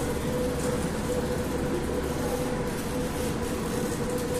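Steady noise inside a Moskva-2024 metro car, with a constant mid-pitched hum over it.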